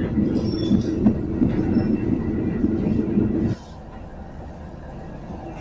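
Passenger train running along the rails, a loud low rumble heard from aboard. About three and a half seconds in it drops suddenly to a much quieter rumble.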